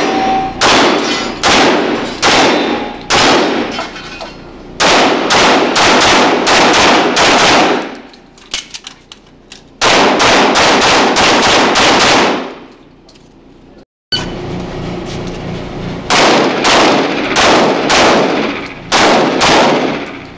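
Rapid pistol fire from an Open-division competition race pistol, shot in quick strings of several shots a second with short pauses between strings. The shots echo off the walls of an indoor range.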